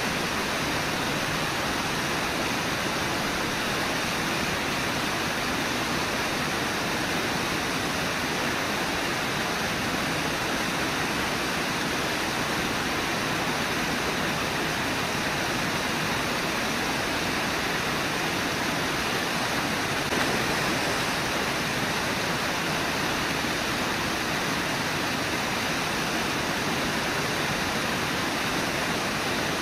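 Steady rush of the Brooks River's rapids and falls, an even, unbroken wash of water noise.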